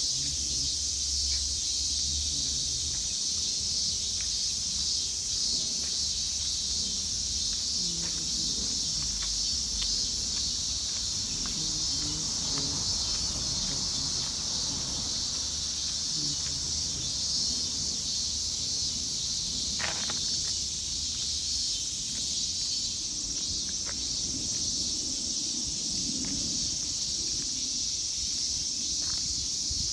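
Steady, high-pitched chorus of insects, unbroken throughout, with a low rumble underneath.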